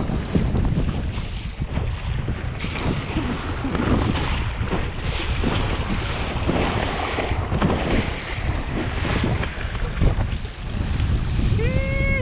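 Wind buffeting the microphone over the rush and splash of a small sailboat's hull slapping through choppy sea under sail. A short vocal sound comes near the end.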